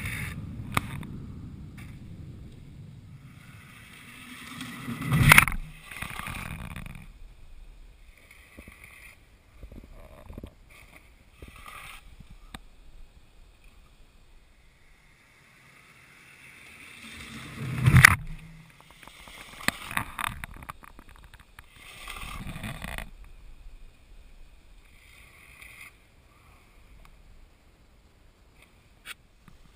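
Skis of small-hill ski jumpers running over plastic matting. Twice a rising rumble builds to a sudden loud thud, about five and about eighteen seconds in, with a smaller swell later and scattered light clicks.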